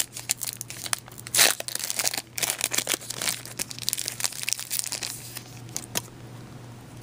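The wrapper of a football trading-card pack being torn open and crinkled by hand: a run of irregular rips and crackles, with one sharp tear about a second and a half in. It stops about six seconds in.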